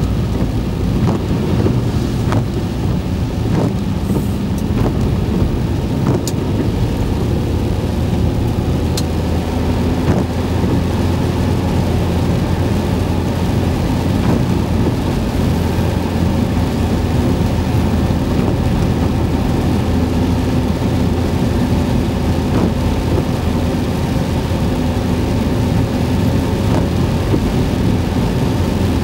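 Steady car-cabin noise while driving on a wet road: low engine hum and tyre rumble, heard from inside the car, with a few light ticks in the first ten seconds.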